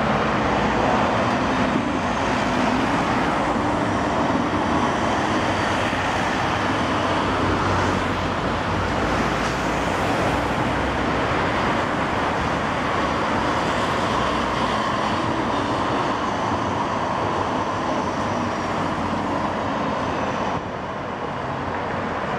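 Steady road traffic noise on a city street, with cars passing continuously.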